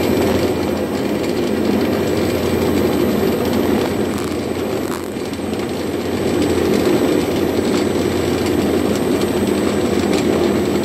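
Stephan UMSK 24 universal cutter-mixer running steadily, its blades and scraper arm turning through fish surimi paste to mix in the starch. The level dips slightly about halfway, then comes back up.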